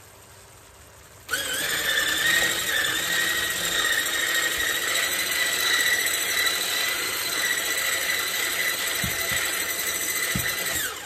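Electric hand mixer with a whisk attachment beating cake batter in a stainless steel bowl: the motor starts about a second in with a quick rise in pitch, runs as a steady high whine, and stops near the end.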